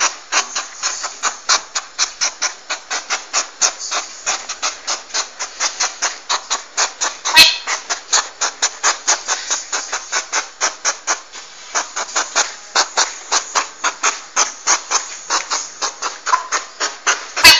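Porcupine rattling its quills: a fast, even, hissing rattle of about five strokes a second, with a sharp click about seven seconds in and another near the end.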